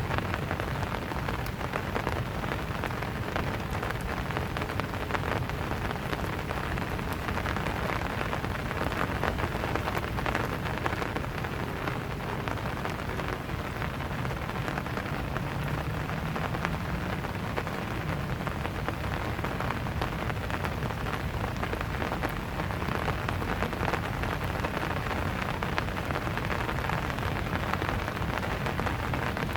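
Steady rain falling, a dense patter of many small drops striking surfaces.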